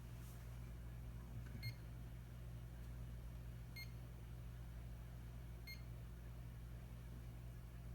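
Three short, identical electronic beeps about two seconds apart, over a steady low electrical hum, with a light knock just before the first beep.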